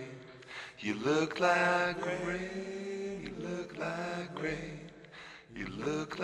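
Background song: a voice singing long, drawn-out notes that waver in pitch, with short breaks between phrases.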